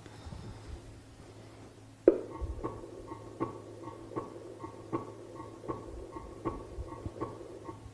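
Simulated heart sounds played back by an auscultation manikin's smart stethoscope: after a sharp thump about two seconds in, steady paired lub-dub beats repeat at about 80 a minute.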